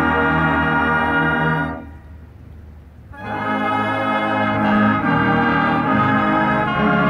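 Marching band of brass and woodwinds, sousaphones on the low end, playing slow held chords. They break off for about a second and a half about two seconds in, then come back in.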